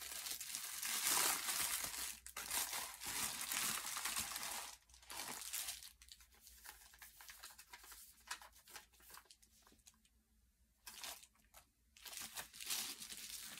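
Paper and plastic packaging crinkling and tearing as a mailer envelope is pulled open and tissue-paper wrapping is handled. A dense rustle for the first few seconds, then scattered crinkles with a short lull near the end.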